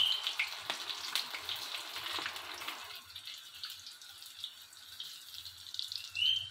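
Potato and aubergine pakoras in gram-flour batter deep-frying in hot oil in a wok: a steady crackling sizzle with many fine pops, easing to a quieter sizzle about three seconds in.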